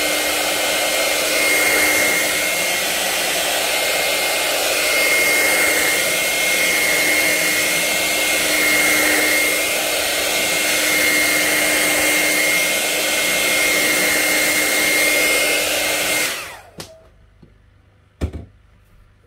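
Handheld hair dryer running steadily on a constant hum, blowing warm air to dry a fresh coat of decoupage sealant on a glass plate; it switches off about sixteen seconds in. A single knock follows near the end.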